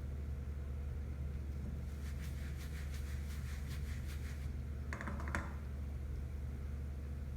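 Steady low hum, with a run of quick, light clicks about two seconds in and a short clink about five seconds in.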